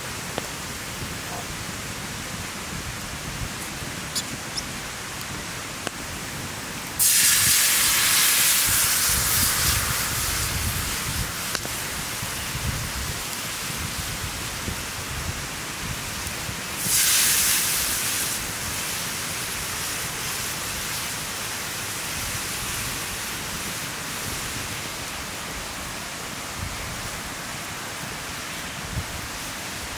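Sizzling in a skillet over a crackling campfire. About seven seconds in, a liquid poured into the hot pan sets off a sudden loud hiss that fades over a few seconds, and a second pour about seventeen seconds in does the same. The salty-sweet sauce then bubbles and sizzles steadily.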